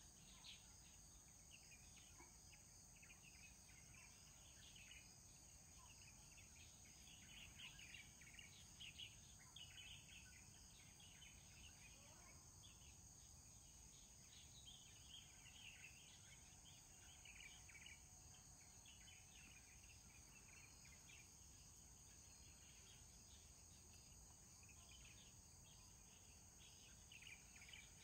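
Near silence: a faint, steady, high insect drone with scattered faint chirps.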